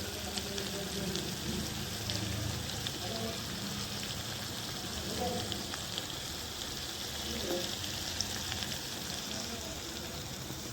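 Vegetables sizzling steadily as they fry in oil in a pan, with a few faint clicks of stirring.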